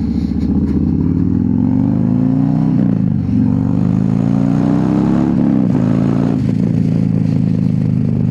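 Harley-Davidson Road Glide's Milwaukee-Eight V-twin accelerating through the gears. Its pitch climbs, drops at a shift about three seconds in, climbs again, drops at a second shift a little past halfway, then holds steady.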